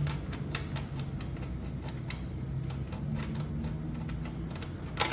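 Scattered light metallic ticks and clicks of hand tools working the front axle bolt of a motorcycle wheel, with a louder clack near the end.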